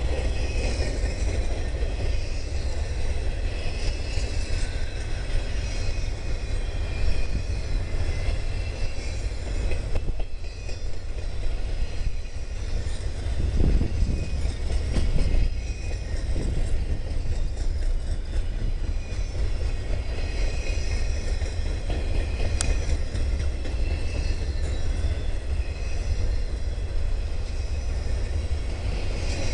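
Railroad cars rolling past with a steady low rumble of wheels on rail.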